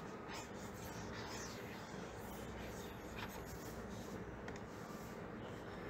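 Faint scratching of a stylus dragged over a writing tablet in a few separate strokes, over low room noise.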